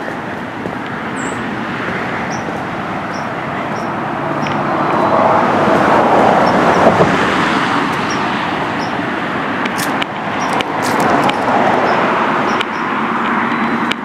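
Road traffic: cars passing on the adjacent road, one swelling up and fading away in the middle, with another going by a few seconds later.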